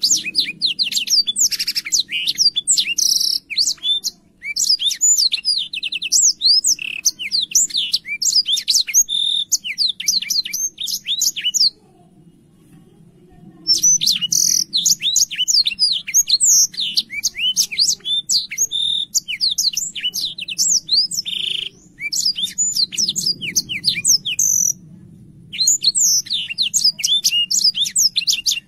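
Black-throated canary singing long runs of fast, high, sliding chirping notes, with a short break about four seconds in, a pause of nearly two seconds near the middle, and two more short breaks later, over a faint low hum.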